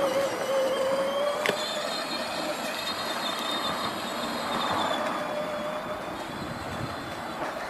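Power Wheels ride-on toy car's electric drive motors and gearboxes whining steadily as it drives. The whine wavers slightly and fades near the end. There is a single sharp click about a second and a half in.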